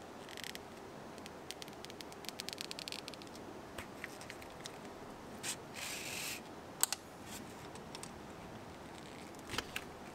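Leather being hand-stitched with tarred hemp thread and a sail needle: small rustles, a run of fast ticks, a brief rasp about six seconds in as the thread is drawn through, and a few sharp clicks.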